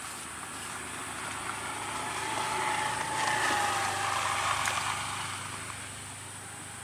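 A distant engine passing by: the sound swells to a peak about three and a half seconds in and then fades, its pitch sinking slightly as it goes past.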